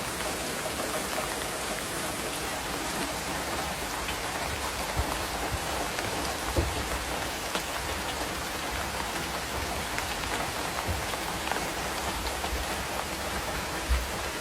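Heavy downpour drumming steadily on the roof of an electric-tricycle camper, heard from inside, with a few heavier thuds now and then.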